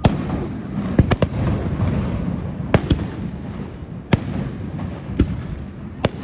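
Fireworks shells bursting in a string of sharp bangs at uneven intervals, some in quick pairs, over a steady low rumble.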